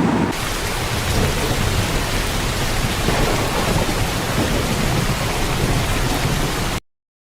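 Heavy rain falling steadily over a low thunderstorm rumble. It takes over from a siren-like sound just after the start and cuts off abruptly near the end.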